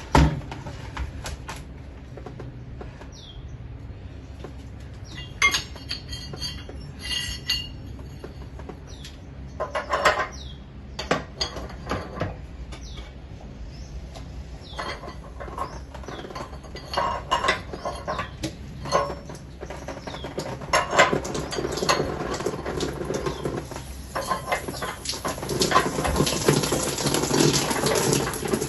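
Scattered metallic clinks and clanks, as of metal parts or tools knocking together. About 21 seconds in, a denser noise builds and runs on, like water splashing or pouring.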